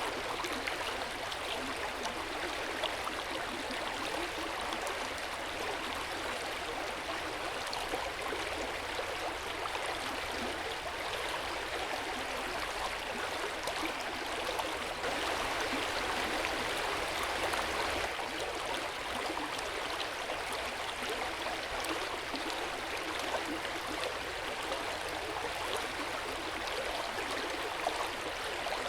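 Hot-spring water flowing and splashing into an outdoor bath: a steady gush with small droplet splashes, swelling slightly about halfway through.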